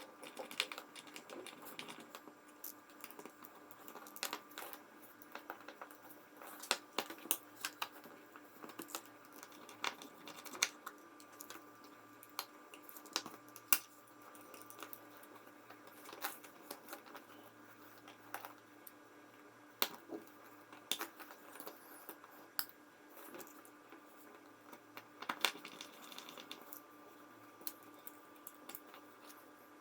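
Scattered small clicks and taps of tweezers and tiny smartphone parts being handled and pressed into place in a phone's frame, irregular and a few per second at most, over a faint steady hum.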